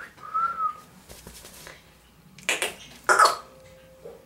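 A boy's mouth noises: a short squeaky tone that rises and falls at the start, then two short breathy bursts about half a second apart, like coughs.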